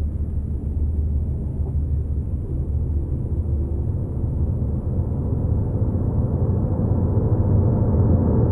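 Dark ambient drone: a dense, low rumble with a faint high hiss above it, slowly growing louder.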